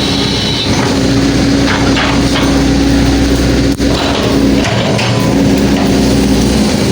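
Hydraulic excavator's diesel engine running steadily under load, with a few knocks from the working bucket and arm.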